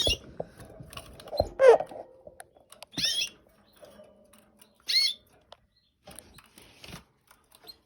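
Canaries giving a few short chirping call notes, single chirps a second or two apart, with small clicks and taps in between.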